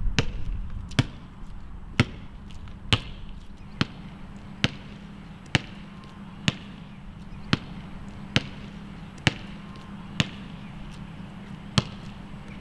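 A basketball being bounced on hard ground: about thirteen sharp bounces, roughly one a second, with a longer gap near the end.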